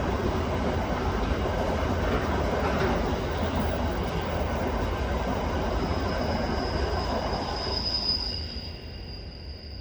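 A train passing close by, a steady rumble of wheels on the track that falls away about eight and a half seconds in. A high, thin, steady whine comes in over the last few seconds and carries on after the rumble fades.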